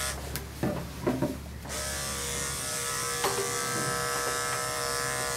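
Electric dog grooming clippers with a #10 blade running with a steady hum. The hum drops away for about a second and a half near the start, then comes back and runs on steadily.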